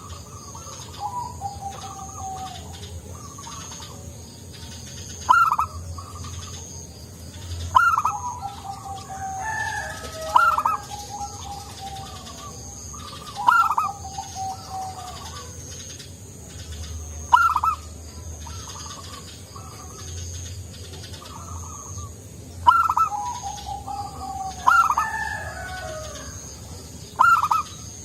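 Zebra dove (perkutut) cooing over and over. Each call is a sharp high note followed by a quick run of lower, falling notes, repeated every few seconds.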